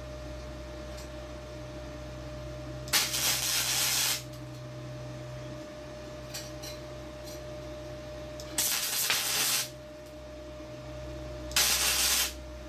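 Flux-core wire welding arc striking three short tack welds on thin exhaust pipe: three bursts of arc noise, each about a second long, a few seconds apart. A steady low hum runs underneath.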